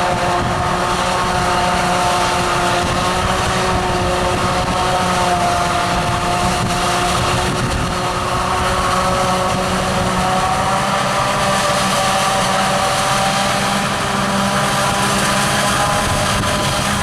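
Claas Jaguar self-propelled forage harvester running steadily while chopping maize for silage: a constant mechanical drone with a steady whine that drifts slightly in pitch.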